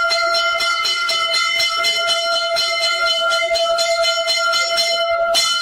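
Temple bells rung rapidly and without pause for the aarti, about four or five strokes a second over a steady ringing tone, with one louder stroke near the end.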